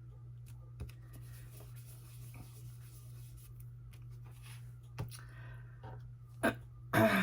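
Paper and card tags being handled and pressed into place on a work surface: faint rustling and light taps over a steady low hum, with a couple of sharper knocks near the end.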